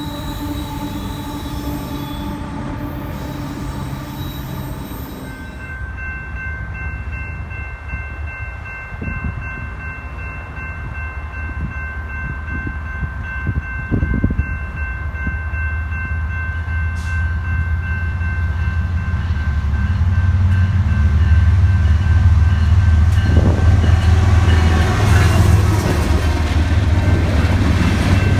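A diesel freight locomotive's horn held for several seconds. Then a grade-crossing warning bell rings steadily while a freight train approaches, its diesel locomotives rumbling louder until they pass and the freight cars roll by near the end.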